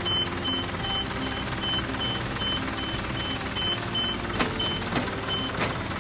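Truck warning beeper giving a high beep about two and a half times a second over a steady low hum; the beeping stops shortly before the end, and three sharp clicks come in the last second and a half.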